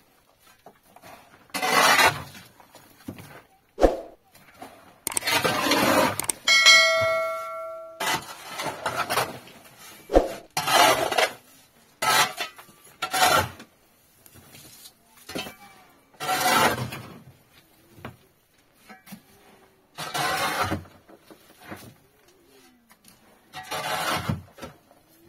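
Repeated short, noisy strokes, roughly one every two to three seconds, and a metal object ringing briefly about six and a half seconds in.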